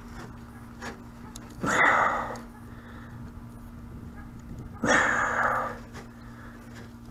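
A man breathing out heavily twice, about three seconds apart, as he strains at hand work, over a faint steady hum.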